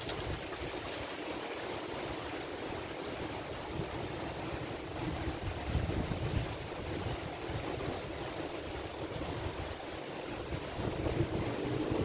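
Strong thunderstorm wind rushing steadily through trees, with gusts buffeting the microphone.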